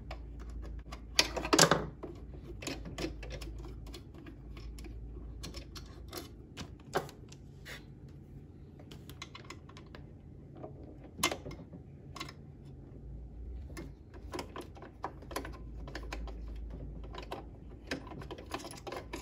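Small screwdriver clicking and scraping on the needle plate screws of a Brother XL5340 sewing machine as they are unscrewed, with irregular light ticks and taps of metal on metal and plastic. A louder clatter comes about a second and a half in.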